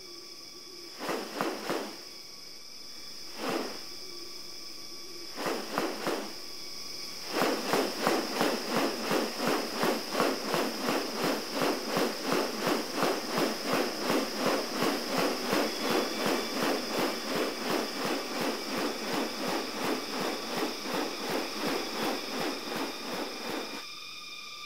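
Steady high insect chorus, with a few short separate sounds early, then a fast, regular series of pulses, about three a second, starting about seven seconds in and running until shortly before the end.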